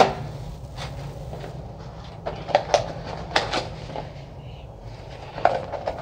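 A small cardboard product box being opened by hand: scattered clicks, taps and scrapes from the lid and packaging, bunched between about two and four seconds in, with one more near the end.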